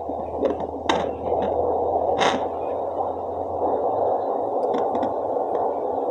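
A home fetal Doppler's speaker giving a steady hiss with a slow heartbeat in it, and a couple of sharp clicks in the first few seconds. The slow beat is the mother's own heartbeat, picked up below her heart, not the baby's faster one.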